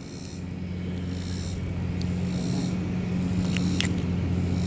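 A motor running steadily, a low hum that grows a little louder, with a short high chirp repeating about once a second and a few faint clicks.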